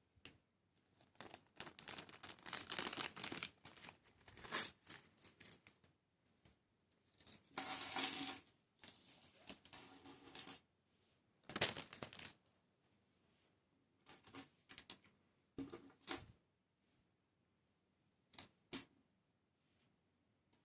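Small diecast and plastic model-kit parts and tools handled on a work surface: an irregular run of clicks, clatters and rustles, busiest in the first half, then a few scattered clicks with quiet gaps.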